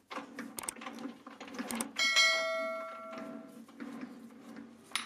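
A bell chime sound effect from a subscribe-button animation rings out about two seconds in and fades over about a second and a half, after a few short clicks. Faint clicks and ticks from the lathe work lie underneath.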